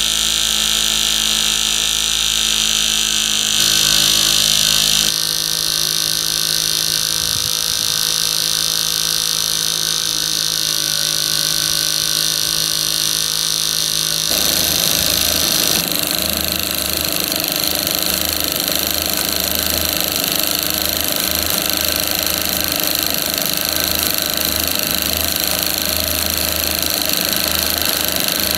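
Small model twin-cylinder steam engine of a model boat steam plant running, with a steady high hiss of steam. A fast low pulsing from the engine comes in during the second half.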